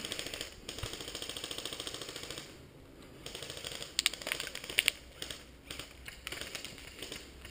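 Airsoft electric gun (AEG) firing a rapid full-auto burst of about two seconds, a fast mechanical rattle, followed a little later by a few sharp single cracks of shots.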